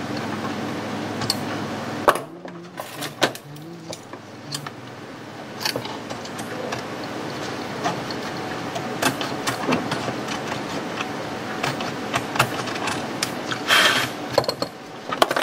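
Scattered clicks and light taps of a screwdriver and small metal parts handled against a laptop's aluminium bottom case, with a short rustle from a small plastic bag of screws near the end. A steady hum in the first two seconds cuts off suddenly.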